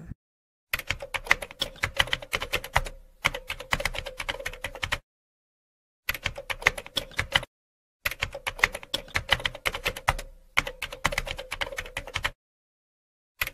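Typing sound effect: rapid keystroke clicks in several runs, each stopping dead, with a faint steady hum under the clicks.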